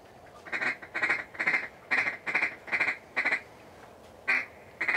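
Duck call blown in a quick, evenly spaced run of loud quacks, about seven in a row, then a pause and two more near the end.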